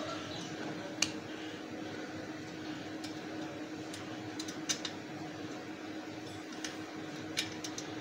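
A few light, sharp clicks of small metal parts being handled while the inner tube's valve is fitted through a motorcycle wheel rim, over a steady low hum.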